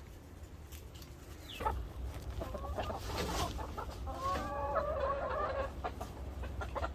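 Domestic chickens clucking, with a longer drawn-out call from about four seconds in.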